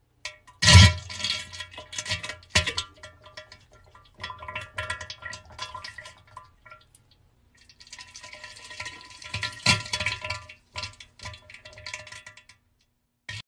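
Bells clinking and ringing at a few fixed pitches in irregular strokes, with a heavier knock about a second in and a short pause around the middle.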